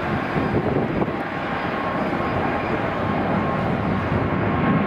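Boeing 777-300ER's twin GE90-115B turbofan engines at takeoff thrust as the jet climbs out: a loud, steady rushing noise with a faint high whine, growing a little louder near the end as the aircraft comes closer.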